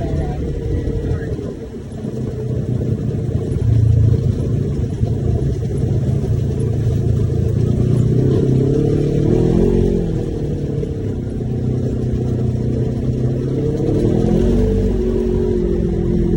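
Side-by-side UTV engine running, its pitch rising and falling as the throttle changes, with a brief dip in loudness about two seconds in.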